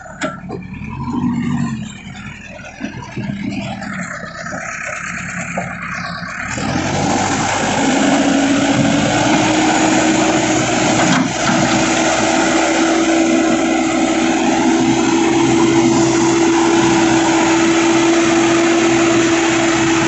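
JCB 3DX backhoe loader's diesel engine running under load as the machine drives over muddy ground. About a third of the way in it revs up and then holds at steady high revs.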